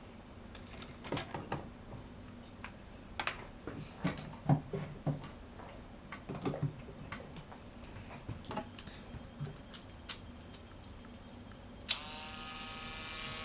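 Scattered clicks and knocks of small parts being handled. Near the end, a 12-volt mini electric drill's small motor starts and runs with a steady whine: the new drill spinning and apparently working fine.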